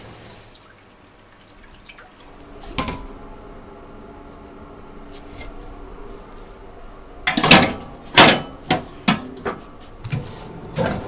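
Kitchen work: a single sharp knock about three seconds in, then from about seven seconds a run of loud knocks and clatter, two big ones first and then several smaller ones, as equipment is handled.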